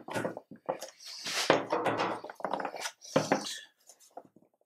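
A flexible brick mould being bent and pushed by hand to free a cast plaster brick. The mould makes irregular rubbing and scraping sounds, with a few light knocks against the table.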